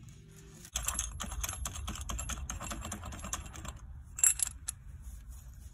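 Small steel puller parts being handled, with a collet fitted onto the puller body: a fast run of light clicks and rattles for about three seconds, then a short, sharper cluster of clicks about four seconds in.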